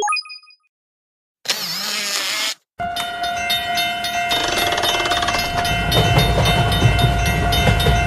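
Cartoon train sound effect: a train running with regular clicking, about three or four a second, over held steady tones, its low rumble growing a few seconds in. It is preceded by the end of a springy boing and a short whoosh.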